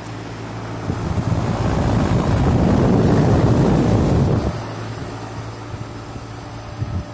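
2008 NuTone 2.5-ton central air conditioner outdoor unit, with a Copeland scroll compressor, running with a steady low hum. From about a second in to about four and a half seconds, a loud rush of air buffets the microphone over the hum.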